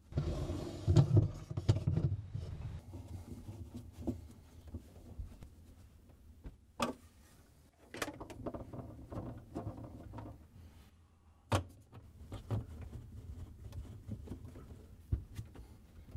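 White plastic freezer basket rails being handled and screwed to the freezer liner with a hand Phillips screwdriver: a stretch of rubbing and knocking at the start, then scattered sharp clicks and taps.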